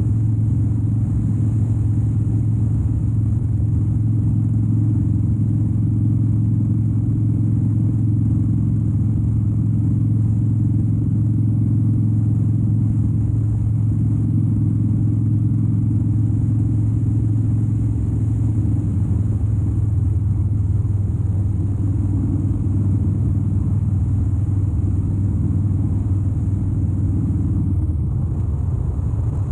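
2013 Harley-Davidson Dyna Wide Glide's 103 cubic-inch V-twin engine running steadily while riding, a low, even drone. The sound eases slightly near the end.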